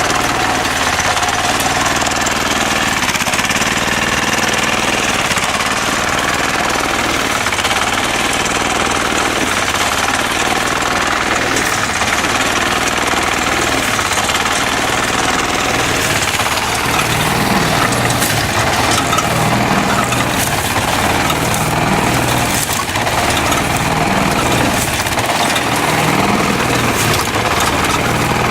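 An engine runs steadily with a rapid mechanical clatter over it.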